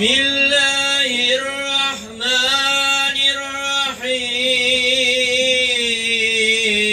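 A man reciting the Quran in a slow, melodic chant, holding each note for a second or more, at the opening of the recitation.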